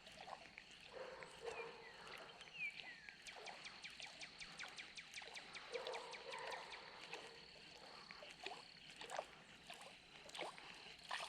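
Faint outdoor ambience with birds calling, one giving a short falling whistle. A run of rapid ticks, about seven a second, lasts roughly three seconds, over a thin steady high-pitched tone.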